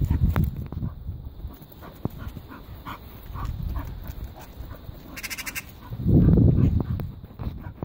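English bull terrier making short, repeated whining cries while excited by a magpie. Loud low buffeting on the microphone at the start and again about six seconds in.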